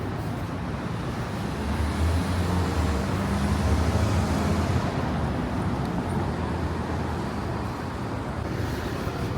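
City street traffic: a steady wash of road noise, with a vehicle's low engine hum swelling as it passes about two seconds in and fading again a few seconds later.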